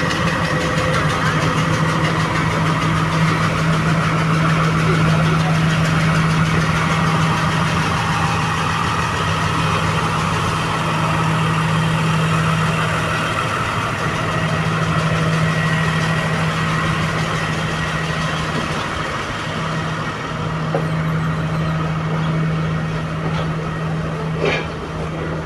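Diesel engine of a Class S11 diesel multiple unit power car running with a steady low drone, easing a little in the second half.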